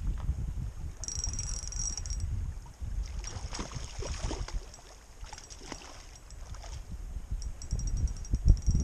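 Wind buffeting the microphone, with a hooked trout splashing and thrashing at the lake surface about three to six seconds in, and light ticking from a spinning reel being wound.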